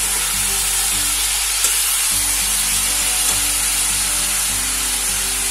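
Cabbage, potato and fried fish sizzling in oil in a kadai as a metal spatula stirs them together with the spice paste, a steady frying hiss.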